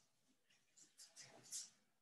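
Faint, short rustling swishes, several in quick succession from about the middle of the stretch, like clothing or body movement close to a microphone.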